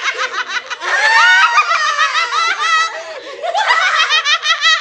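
A group of people laughing hard, in quick overlapping runs of high-pitched ha-ha-ha, easing off briefly around the middle before picking up again.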